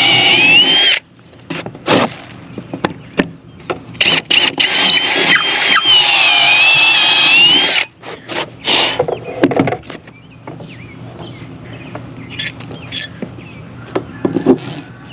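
Power drill boring into a wooden beam for carriage bolts, running under load with a whine that wavers in pitch. It stops about a second in and runs again from about four to eight seconds. A few sharp knocks and clicks follow.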